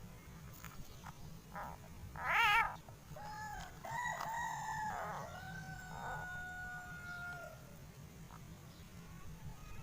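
A rooster crowing: a stepped call that ends in a long held note lasting a few seconds. About two seconds in, a short, loud, wavering call comes first and is the loudest sound.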